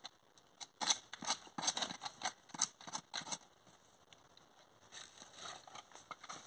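A hand bark-streaking tool scraping a fresh groove into a pine trunk for resin tapping, in about ten quick, sharp strokes over two and a half seconds. Near the end comes a softer rustle of footsteps on dry pine needles.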